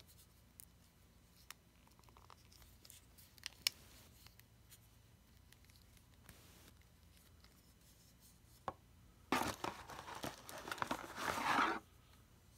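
A few light clicks and taps, then, about nine seconds in, a plastic bag crinkling and rustling for two to three seconds as an action figure is pulled out of it.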